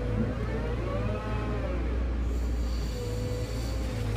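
Excavator engine running steadily, driving a hydraulic rotary ditch-cleaner head that churns mud and reeds out of a ditch. A whine rises and falls in pitch once, about a second in.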